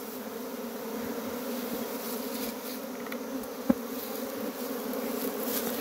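A swarm of honey bees buzzing steadily in a dense, continuous hum as they crowd into the entrance of a wooden hive box after being smoked. One brief sharp knock comes a little past halfway.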